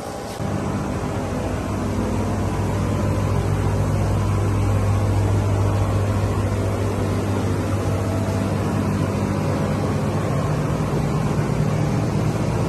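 A 12-volt DC electric motor on a radio-controlled weed-spraying cart switches on about half a second in and runs with a steady low hum.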